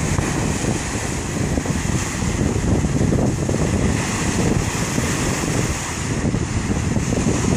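Waves breaking and washing on a beach, with wind blowing steadily across the microphone.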